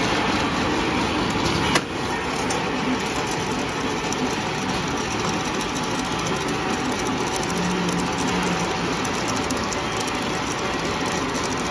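Paper straw packing machine running steadily: a dense mechanical whir with fast, light clicking, and one sharp click a little under two seconds in.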